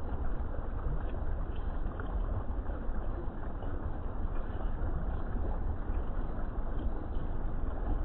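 Garden fountain's water falling and splashing steadily into a koi pond, a constant rush with a strong low rumble under it.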